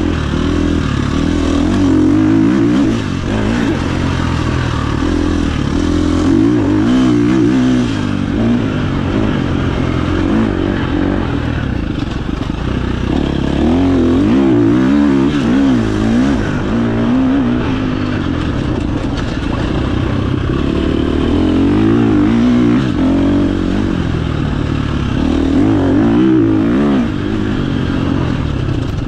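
KTM 350 XC-F dirt bike's single-cylinder four-stroke engine being ridden, its pitch rising and falling again and again as the throttle is opened and rolled off, over a steady rush of wind noise.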